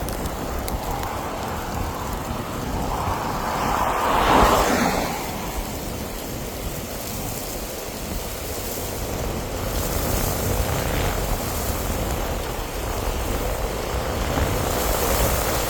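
Steady roar of a tornado, mixed with wind noise, with a deep rumble underneath. The roar swells about four seconds in, then settles.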